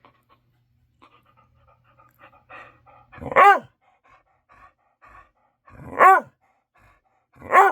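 A pet dog barking three times, single loud barks a couple of seconds apart, with faint softer sounds from the dog between them.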